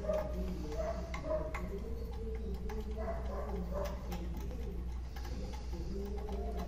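A bird cooing in short, repeated low phrases, over a steady low hum and scattered light clicks of hand work on the hybrid inverter's cover bolts.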